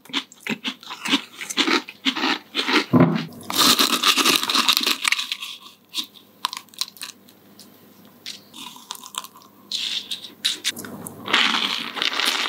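Close-up crunching and chewing of chocolate-coated hazelnut cereal crisps (Lokal Munchies Baby Crunch), a dense crackle over the first few seconds. It gives way to quieter scattered scraping as a spoon works the cereal onto bread, and a louder burst of crunching comes back near the end as the bread is bitten into.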